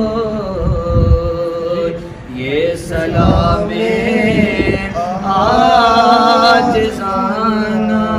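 Men's voices singing an unaccompanied Urdu-Punjabi devotional naat (salat-o-salam) in long, held, wavering notes, with a short breath about two seconds in.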